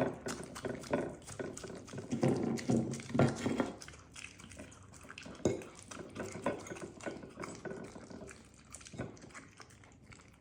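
Wet squelching and irregular clicking of raw meat dog food being handled and mixed by hand, busier and louder for the first four seconds, then quieter.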